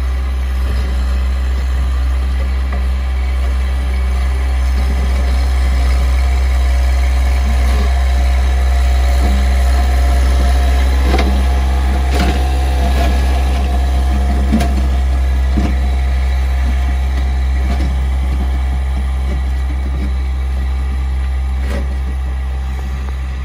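Sany SY35U mini excavator's diesel engine running steadily at idle, heard from inside its cab, with a low hum throughout. A Massey Ferguson GC1720 compact tractor's engine works alongside it, growing a little louder midway as the tractor drives close, with a few rattles and knocks.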